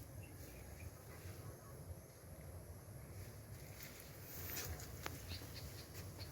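Faint outdoor ambience: a low steady rumble, with a few light rustles and clicks from about four seconds in.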